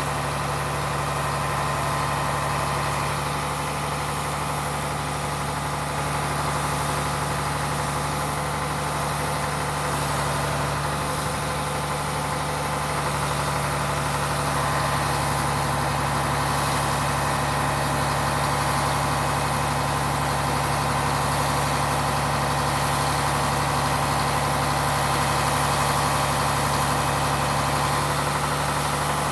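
Truck diesel engine running steadily at idle, powering the hydraulics of a truck-mounted Effer 210 knuckle-boom crane as its boom moves. The sound stays constant, growing slightly louder about halfway through.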